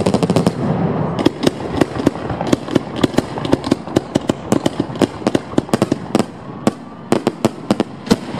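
Aerial fireworks bursting at close range: a loud, fast, irregular run of sharp cracks and bangs, several a second.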